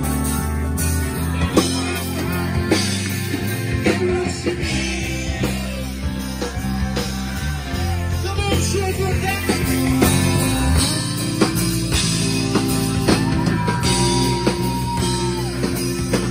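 Live rock band playing: electric guitars, bass and drum kit, with singing.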